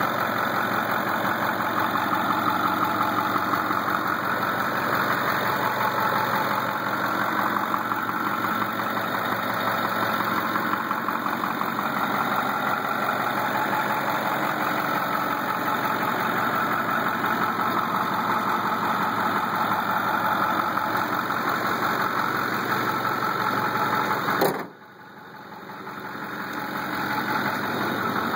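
Ford F-250's Power Stroke V8 turbo-diesel idling steadily. Near the end a brief knock is followed by a sudden dip in the sound, which comes back up over a few seconds.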